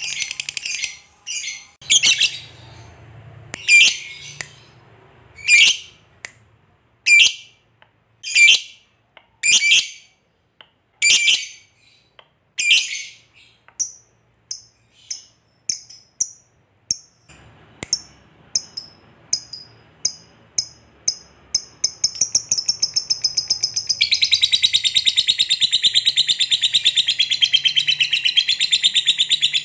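Lovebird calling in loud, high, sharp chirps about one every second and a half, which turn shorter and quicker and, about 24 seconds in, run together into one long rapid chatter: the long 'ngekek' song of a lovebird in full voice.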